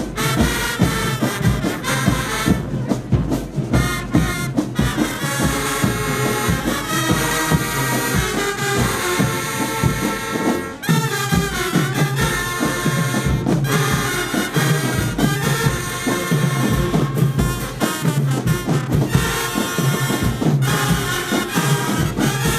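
Marching band playing, with brass (trumpets and trombones) over drums, and a brief break in the music about eleven seconds in.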